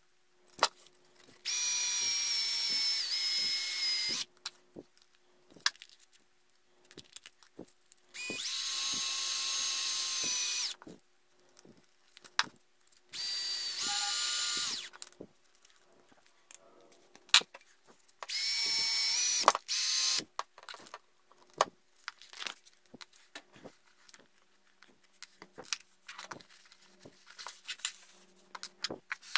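Cordless drill spinning the shaft of a small brushless motor clamped in its chuck while sandpaper polishes the shaft to fit its bearings. It runs in four steady bursts of two to three seconds each, with light clicks and handling knocks in the pauses between them.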